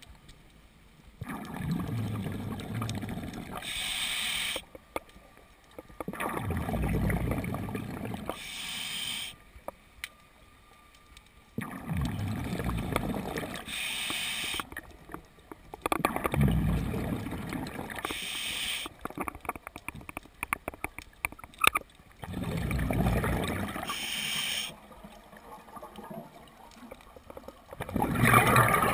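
Scuba diver breathing through an open-circuit regulator underwater. Each breath is a short hissing inhale followed by a longer rumbling, bubbling exhale, repeating steadily about every five seconds.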